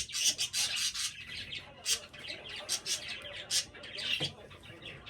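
Pet bird chirping and squawking: repeated short, sharp, high-pitched calls at irregular intervals.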